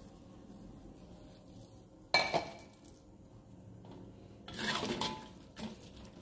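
A metal ladle-spatula knocks and scrapes against a metal wok while stirring shredded chicken in broth. There is one sharp ringing clank about two seconds in, then a short run of scrapes and clinks near the end.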